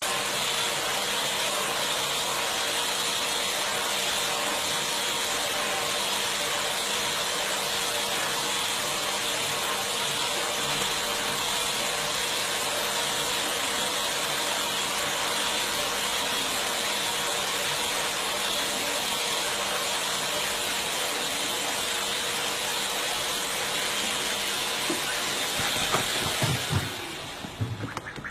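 Vacuum cleaner running steadily with a hissing whine, switched off about a second before the end and winding down, with a few short knocks as it stops.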